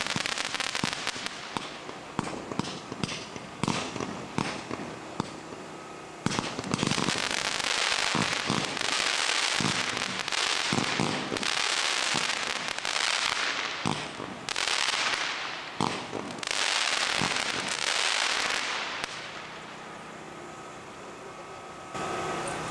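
Consumer aerial fireworks going off: a quick run of sharp pops, then about a second in each, repeated bursts of crackling that die away near the end.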